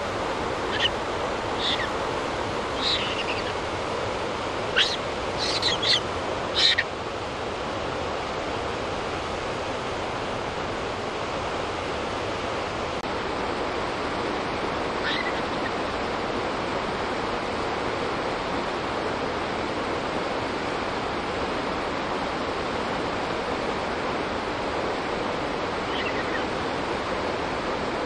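A steady rushing noise outdoors, with a string of short high-pitched calls over the first seven seconds and two fainter single calls later.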